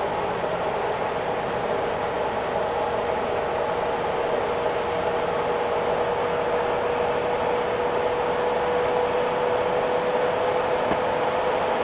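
Steady running noise of a moving road vehicle heard from inside the cabin: engine and tyre noise with a steady whine that rises slightly in pitch and grows a little louder as it goes.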